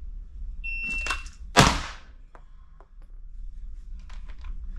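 A shot timer's start beep, a steady high tone lasting about half a second, then a single pistol shot about a second later. A few light clicks follow.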